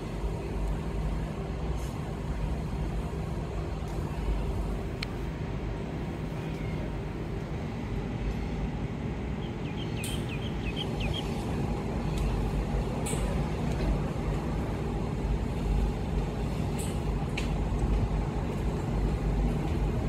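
Endeavour diesel railcar approaching, a steady low engine rumble with a faint hum that grows a little louder over the last few seconds.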